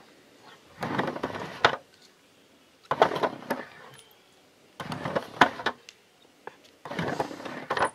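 Finger scooter's tiny wheels rolling back and forth on a toy halfpipe ramp, with sharp clacks as the deck and wheels hit the ramp. It comes in four runs of about a second each, roughly two seconds apart.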